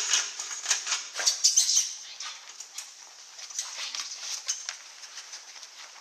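Dog sniffing hard in quick, rapid breaths while searching for a scent. The bursts are loudest in the first two seconds and fainter after that.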